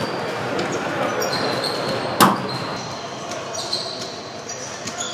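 A single sharp smack of a racquetball about two seconds in, echoing in the enclosed court, with sneakers squeaking in short chirps on the hardwood floor throughout.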